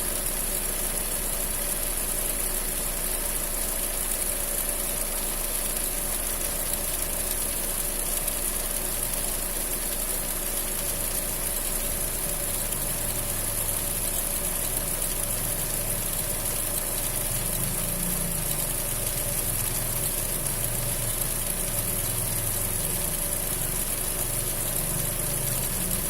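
Fiat Punto 1.4 engine idling steadily, with a noise from its accessory drive belt, the fault being shown.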